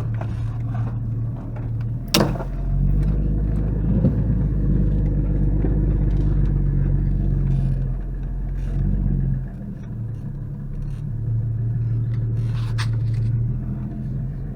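Jeep Cherokee XJ driving a rough trail, its engine running steadily under load with a low rumble, working harder for a stretch before easing off. A sharp knock comes about two seconds in and a lighter one near the end.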